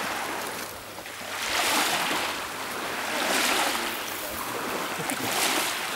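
Small waves washing in at the water's edge of a pebble beach, swelling and fading about every two seconds.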